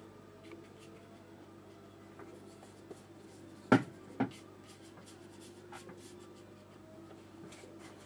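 Faint scratchy strokes of a flat paintbrush on watercolour paper, with two sharp taps about half a second apart near the middle.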